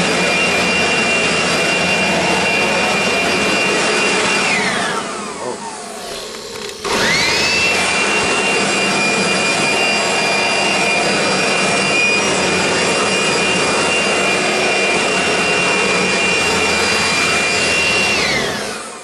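Small electric blower running with a steady high whine, blowing sawdust off sanded wood. About four seconds in it is switched off and winds down, falling in pitch; it starts again a couple of seconds later, rising back up to speed, and winds down once more near the end.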